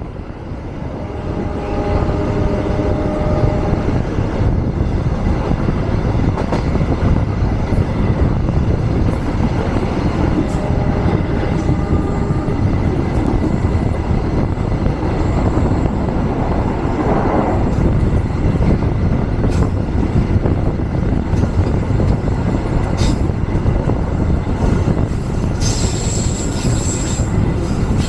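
Merak local passenger train running on the rails: steady wheel-and-track rumble that builds over the first couple of seconds. Brief pitched wheel squeals come in now and then, with a high squeal near the end.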